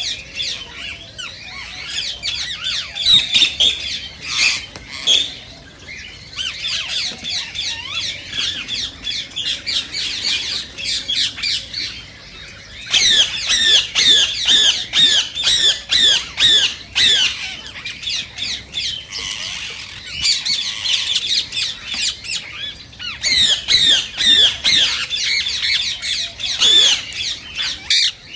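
Indian ringneck parakeet squawking: rapid runs of high calls, several a second, in bouts of a few seconds with short pauses between them.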